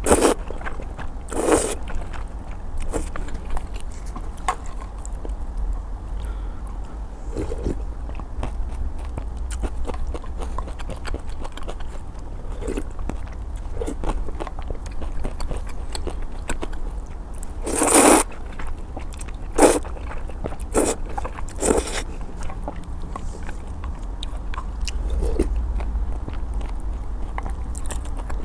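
Close-up eating sounds of a person eating luosifen (river-snail rice noodles): steady chewing and mouth noises, with a few louder, short eating sounds scattered through. A steady low hum runs underneath.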